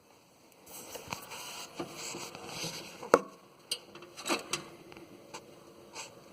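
Handling noises: rustling and a scatter of light clicks and knocks, the sharpest about three seconds in.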